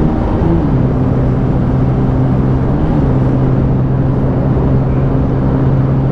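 Bajaj Pulsar 125's 124.4cc single-cylinder engine running hard near its top speed of about 100 km/h, heard from the rider's seat with wind rushing past. The engine note dips in pitch about half a second in, then holds steady.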